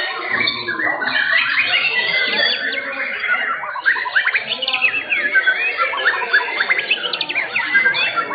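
Several white-rumped shamas (murai batu) singing at once in a contest, a dense overlapping mix of rapid whistles, chirps and sweeping notes.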